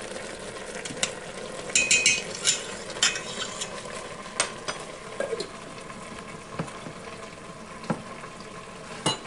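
Chicken and vegetable stir fry sizzling steadily in a pan while being stirred with a spoon, with scattered clicks and scrapes of the spoon against the pan, busiest a couple of seconds in.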